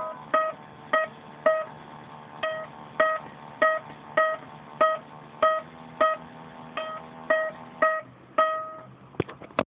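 Music played on a plucked string instrument: single plucked notes, mostly on one pitch, about two a second, stopping shortly before the end.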